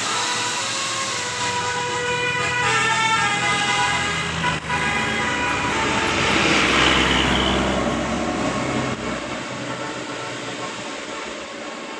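A bus's 'telolet' multi-tone musical horn playing a short tune of stepped notes, then the bus passing with a rush of engine and road noise that swells about halfway through and fades.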